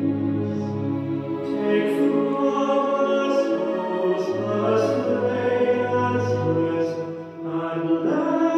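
Slow choral music: voices singing long held notes.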